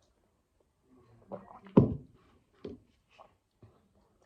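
A few short knocks and thumps, the loudest and sharpest about two seconds in.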